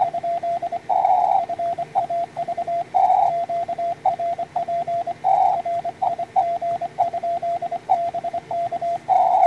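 Morse code (CW) from the homebuilt SW20 20-metre transceiver's audio: a steady tone of one pitch keyed in dits and dahs. Short patches of hissy band noise fill the gaps between words.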